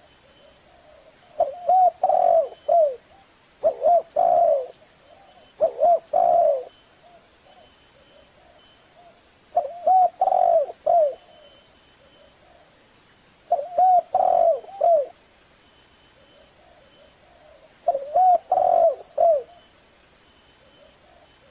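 Spotted dove cooing: repeated phrases of several low, arched coos, with pauses between phrases.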